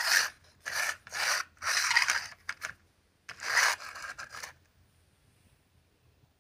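Plastic toy car pushed back and forth on a hard floor, its wheels and drive rasping in about five short strokes. The strokes stop about four and a half seconds in.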